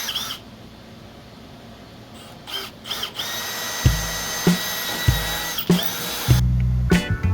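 Handheld power tool spun up in a few short bursts, then running steadily with a high whine for about three seconds before cutting off. Background music with a heavy bass beat comes in about four seconds in.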